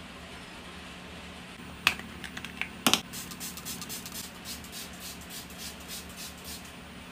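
Makeup items being handled close up: a sharp click about two seconds in, a few small clicks, a loud double click, then a run of quick light tapping and scraping strokes, several a second, over a steady low hum.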